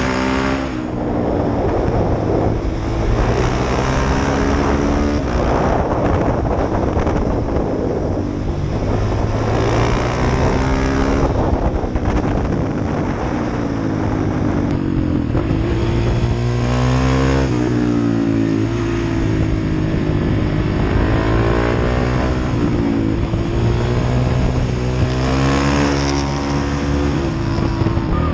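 Motorcycle engine heard on board while riding, its pitch climbing and dropping back again and again as the rider accelerates, shifts and rolls off, over steady wind noise.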